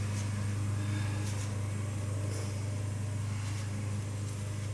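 A steady low hum, with a few faint light taps about once a second.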